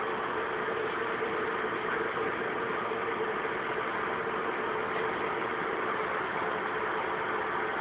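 A steady mechanical hum with a few held tones, running evenly without change.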